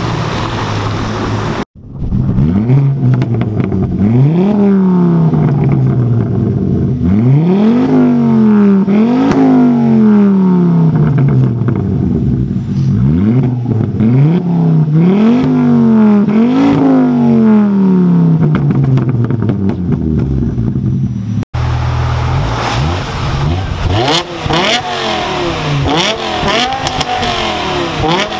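Ford Focus hatchback engine revved again and again through its twin centre exhaust, each rev climbing quickly and dying away more slowly. After a cut about twenty seconds in, a BMW M5 (E60) revs in shorter, quicker blips through its quad exhausts.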